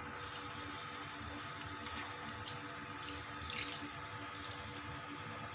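Water spraying steadily from a handheld shower head, coming on at the start, as the head is tested after its leaking seal was reseated.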